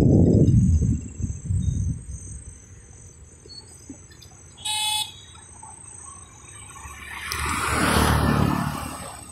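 Road traffic: a vehicle passing and fading away at the start, a short horn beep about five seconds in, then another vehicle swelling up and passing near the end. A steady high trilling of night insects runs underneath.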